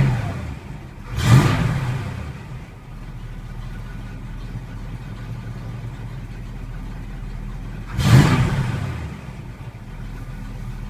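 1964 Chevy Nova's 307 small-block V8, with 305 HO heads, a four-barrel Edelbrock carburettor and stock manifolds into dual exhaust, idling and blipped three times. The revs fall back from one blip at the very start, rise again about a second in, and rise once more near eight seconds in, each time dropping back to a steady idle.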